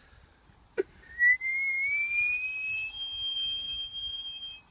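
A person whistling one long note that slides slowly upward, then steps up to a higher pitch and holds it, after a brief click just before it begins.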